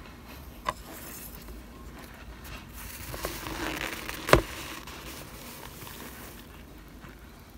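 Metal spoon working through a foil pan of cornstarch chunks: light crunching and squeaking of the chunks. There is a small sharp click near the start and a louder sharp click about four seconds in.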